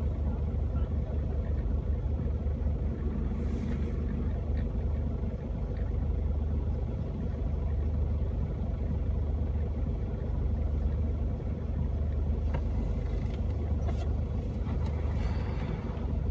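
A vehicle engine idling steadily: a low, even hum heard from inside the vehicle's cabin.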